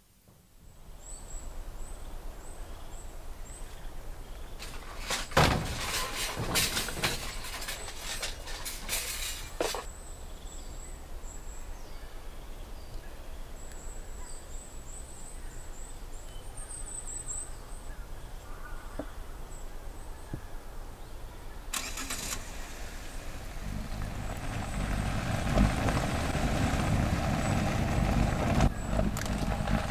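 Car engine sound effect. A few seconds in there are loud bursts of noise, and about two-thirds of the way through the engine starts and runs, getting louder toward the end.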